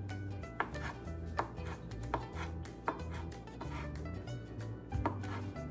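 Kitchen knife chopping imitation crab sticks on a plastic cutting board: a sharp knock of the blade on the board about every three-quarters of a second. Quiet background music underneath.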